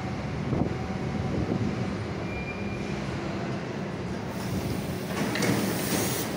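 Berlin U-Bahn train running into the platform and slowing to a stop, a steady rumble with a brief faint squeal about two and a half seconds in. From about four seconds in a hiss builds as it comes to a halt.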